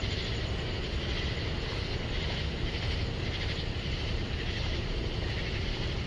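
Steady chorus of cicadas, a high even buzz, over a continuous low rumble.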